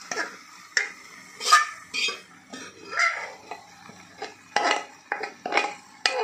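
A spatula scraping and knocking against a metal pot as boiled white peas are scraped out of it into a pan. The clatter comes as an irregular run of sharp scrapes and knocks.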